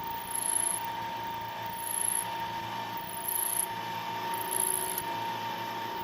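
Small metal lathe running with a steady whine while the cutter is fed slowly into aluminum stock, with a short scratchy cutting sound about once a second.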